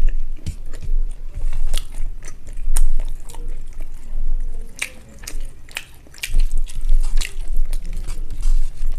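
Close-miked chewing of rice and egg curry, with wet lip smacks and sharp mouth clicks coming irregularly, several a second.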